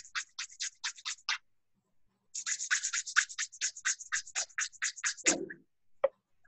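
Rapid scratching strokes close to a microphone, heard over a video call: about eight a second in two runs, with a pause of about a second between them and a dull thump near the end.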